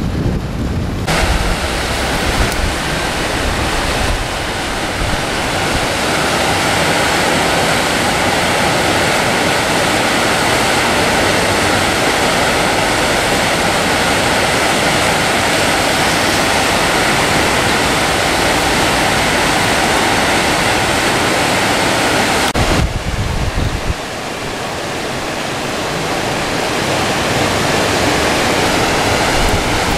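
Heavy rain and rushing floodwater: a steady, dense hiss of water. The sound shifts abruptly about a second in and again near 23 seconds, with low wind rumble on the microphone around those changes.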